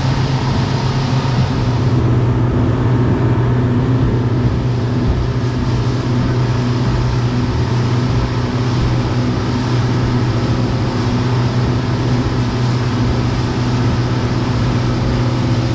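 A vehicle's engine running steadily under way, a loud, even deep hum that does not change.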